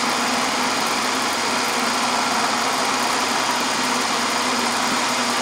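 Milling machine running steadily, its spindle turning an edge finder: an even hum with one steady low tone.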